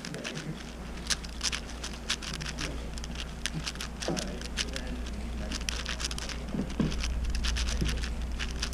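Rapid, irregular plastic clicking of a Moyu Weishi 6x6 speed cube as its layers are turned during a speedsolve.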